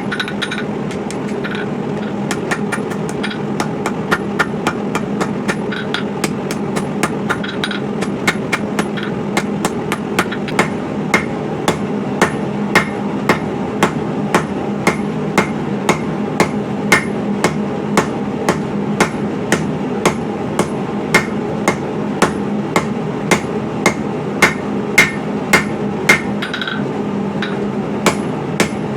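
Blacksmith's hand hammer striking hot coil-spring steel on an anvil in a steady rhythm of about one and a half blows a second, drawing the steel out into a knife handle. The blows pause briefly near the end, and a steady low hum runs underneath.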